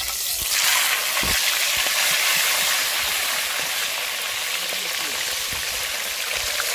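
A whole fish deep-frying in hot oil in a pot: a steady, dense sizzle with fine crackling, filling out about half a second in.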